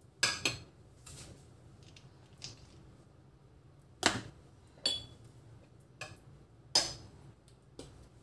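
A metal spoon clinking and knocking against a glass dish, with a spice jar being handled: about half a dozen sharp clinks spaced unevenly, a second or more apart.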